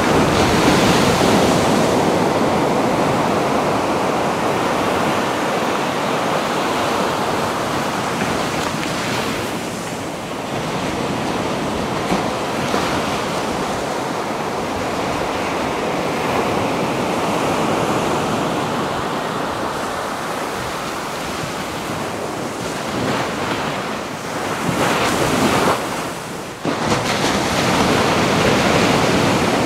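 Pacific Ocean surf washing onto the shore in slow swells that rise and ease over several seconds, with a stronger surge near the end.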